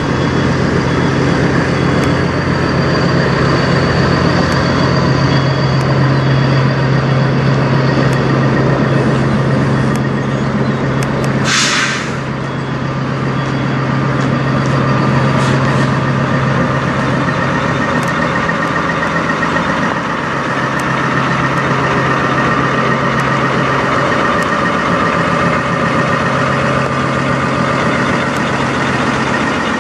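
Heavy diesel semi-truck engine idling steadily with a low hum. A short hiss of air from the truck's air brake system is heard about twelve seconds in.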